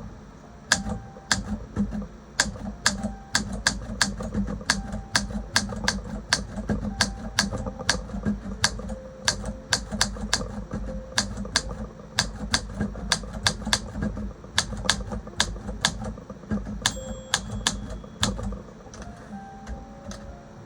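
Olympia SM3 manual typewriter being typed on, its typebars striking the platen in a steady run of sharp clacks, about three a second. Near the end the margin bell rings once, and the typing slows.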